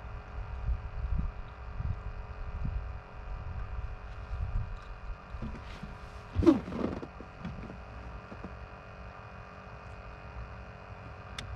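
Handling noise as a small catfish is unhooked in a boat: irregular low bumps and rustling. About six and a half seconds in there is a short, louder pitched sound, over a faint steady hum.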